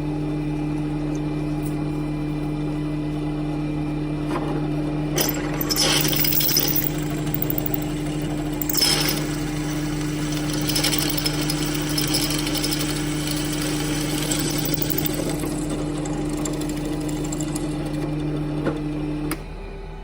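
A handheld electric power tool running at a steady pitch. It grows harsher and louder for a few seconds around five to seven seconds in and briefly near nine seconds as it works, then cuts off suddenly near the end.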